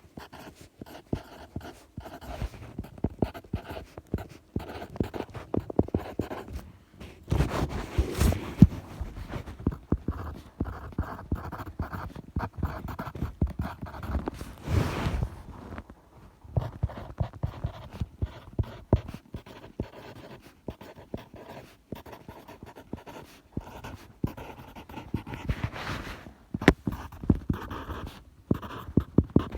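Close-miked writing on paper: a pen or pencil scratching and tapping in quick, irregular strokes, with louder, noisier stretches about a quarter and half of the way in.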